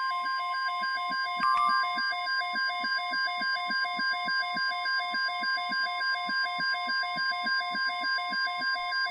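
NOAA Weather Radio 1050 Hz warning alarm tone, one steady unbroken pitch that stops abruptly: the signal that an alert broadcast follows. Beneath it runs a steady pulsing hum of interference, and there is one brief click with a short higher tone about a second and a half in.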